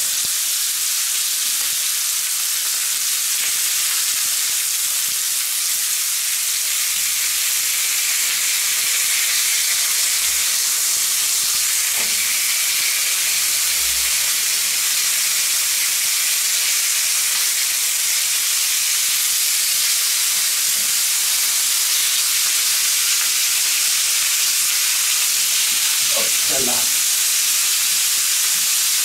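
Bacon-wrapped turkey schnitzel rolls frying steadily on a hot cast-iron griddle plate over a charcoal fire, the bacon fat hissing and spitting. Twice there is a brief faint knock from the tongs turning the rolls.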